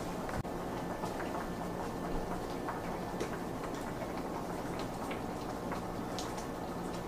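Pot of greens and ham hocks simmering: a faint steady hum with scattered soft irregular ticks and pops.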